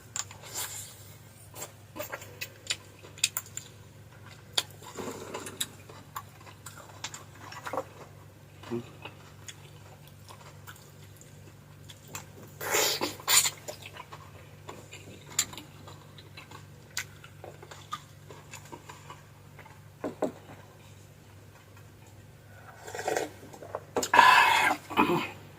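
Close-up eating sounds: chewing, with scattered clicks and taps of utensils on dishes, and two louder, longer bursts about halfway and near the end. A steady low hum runs underneath.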